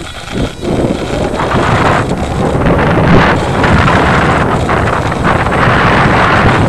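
Loud, steady wind rush buffeting the microphone of a camera riding on a small electric RC foam airplane in flight, with the plane's motor and propeller running under it.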